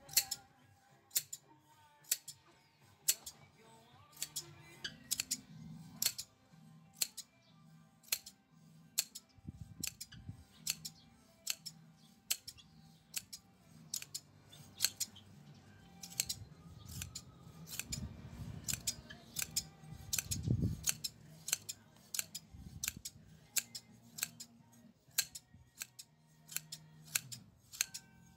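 Hand blade sheep shears snipping through a sheep's wool fleece, giving crisp metal snips at about two a second, many of them in quick pairs.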